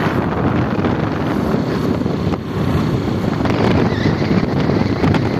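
Wind buffeting the microphone on a moving motor scooter, a loud, steady rush with the scooter's running and road noise beneath it.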